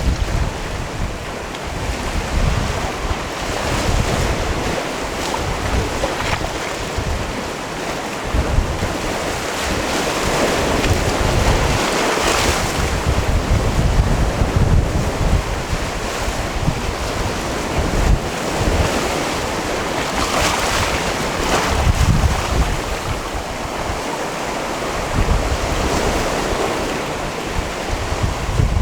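Sea waves washing onto a stony cove shore, the surf swelling twice in long surges, with wind buffeting the microphone in a low rumble.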